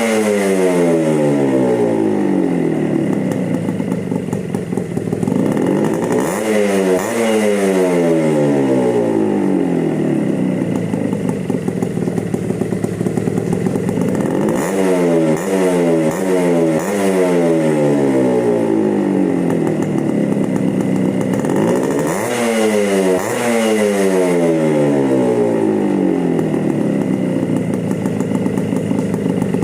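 Suzuki Shogun single-cylinder two-stroke engine on its stock exhaust and muffler, revved in repeated throttle blips. Each time the revs climb sharply and then fall slowly back toward idle, three times over.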